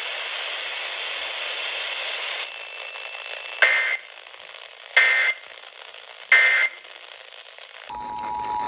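Emergency Alert System audio over radio static. Three short screeching digital data bursts about 1.3 s apart make up the end-of-message code that closes the alert. Near the end the steady two-tone EAS attention signal starts, a harsh dual-tone alarm.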